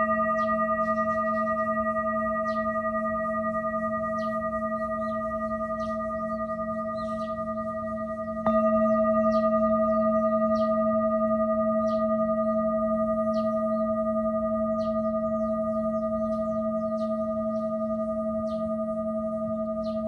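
Singing bowl struck and left ringing: a low hum with several higher ringing overtones that fades only slowly. It is struck again about eight and a half seconds in, renewing the ring at full strength.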